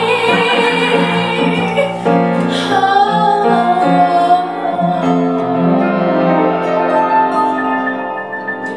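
A woman singing the closing phrase of a musical-theatre song with piano accompaniment, ending on a long held note.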